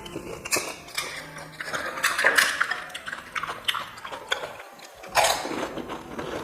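Close-up eating sounds: crisp panipuri shells crunching and being chewed, irregular crackles and clicks, loudest about five seconds in.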